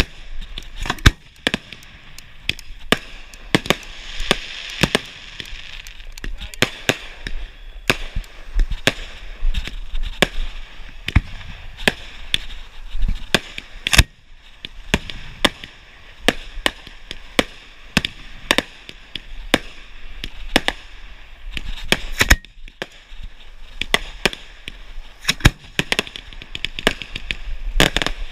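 Display fireworks going off: a rapid, irregular series of sharp bangs, roughly one or two a second.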